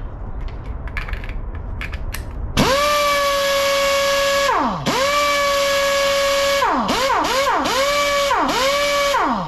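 Pneumatic impact wrench spinning free with no load on air regulated to about 90 psi: a steady high whine with air hiss. It runs for about two seconds and winds down in pitch, runs again, then gives several quick trigger blips, each rising and falling in pitch. A few light clicks come before it starts.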